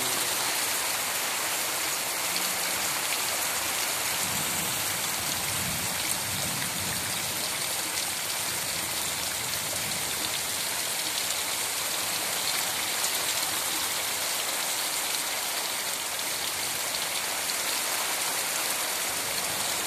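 Heavy rain falling on bare wet soil: a steady, dense hiss of drops.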